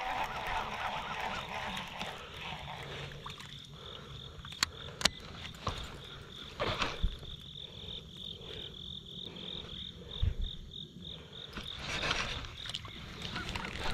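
An insect chirping in a steady high pulsed trill, about three or four pulses a second, with a few sharp clicks and low knocks of handling around it.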